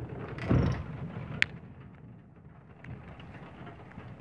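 A roof skylight being opened: a thump about half a second in, then a sharp click of the latch or hinge about a second and a half in. Faint rain ticks on the glass can be heard underneath.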